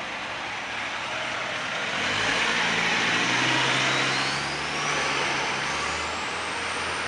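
Edited-in heavy truck engine sound effect: the engine runs and revs, getting louder about two seconds in, with a whine rising steadily in pitch through the second half.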